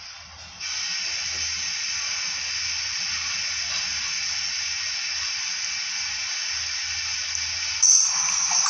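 Steady hiss that starts abruptly about half a second in and holds even. Near the end, a louder sound cuts in suddenly.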